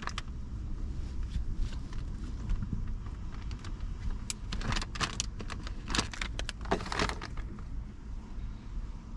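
Metal clinks and jingling from a dog's leash and collar, with light scuffs, as a border collie shifts and steps about on a mattress. The clinks are scattered, thickest a few seconds in, over a steady low rumble.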